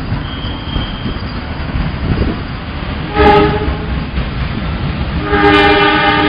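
Train running on the rails with a steady low rumble, while a train horn gives a short blast about three seconds in and a longer, louder blast near the end.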